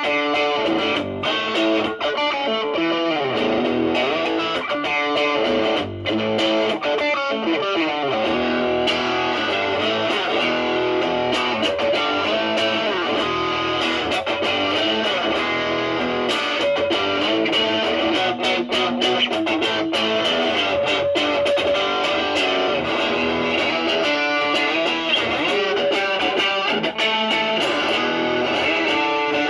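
Stratocaster with single-coil pickups played through a ProCo Brat distortion pedal (OP07 chip) into a Marshall Valvestate amp, improvising blues-style lead lines with string bends. The pedal's gain is set around 2 o'clock, with the tone cleaned up to a lighter drive.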